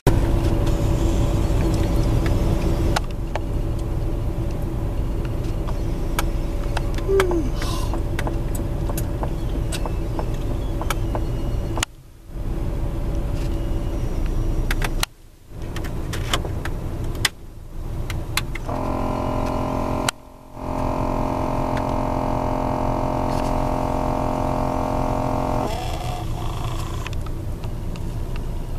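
Car engine idling, heard from inside the cabin, cut into several short pieces with brief gaps. In the middle a steady hum of several tones lasts about seven seconds.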